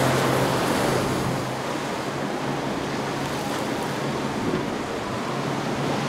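Waves washing and wind noise on the microphone, with the low, steady drone of a boat engine that fades about a second and a half in.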